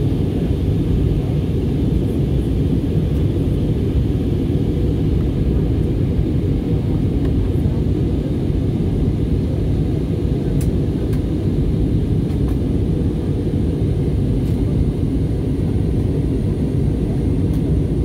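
Steady cabin noise of an airliner in flight: a low, even rush of jet engines and airflow, heard inside the cabin from a window seat.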